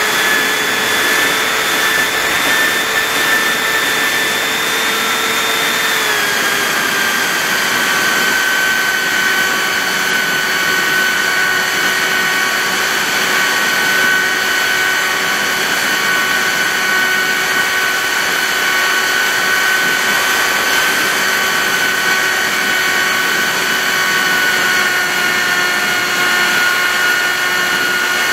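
TBRC Reflex 38 RC airplane's motor and propeller running steadily in flight, a high whine heard from the onboard camera with wind rushing over the microphone. The pitch drops slightly about six seconds in and then holds.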